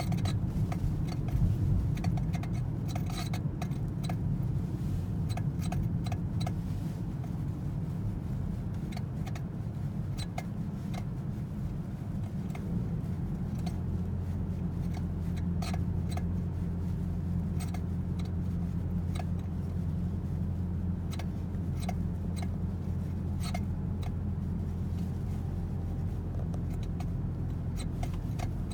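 Toyota C-HR's steering giving short, irregular squeaks, a 'chu-chu' chirping noise, repeated many times over the steady low hum of the car running.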